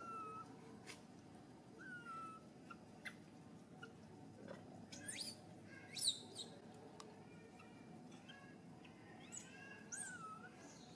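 Baby macaque calling: a run of short, high-pitched, squeaky coos, some falling and some arched in pitch, with two sharper rising shrieks about five and six seconds in, the second the loudest.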